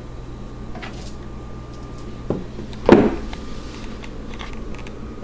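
A single dull knock about three seconds in, with a lighter knock just before it, over a steady low hum.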